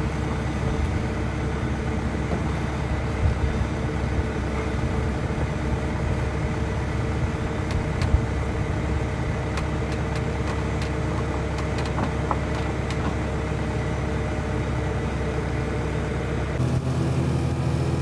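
An engine idling steadily, with a few sharp knocks of a wooden crate being handled on a wooden trailer deck, the loudest about eight seconds in. Near the end the sound changes abruptly to a different engine: a side-by-side utility vehicle running.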